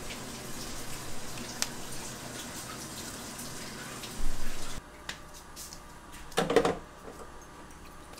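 Water running from a tap, with a few small clicks, then a loud burst just before the flow cuts off suddenly about five seconds in; a short clunk follows a second or so later.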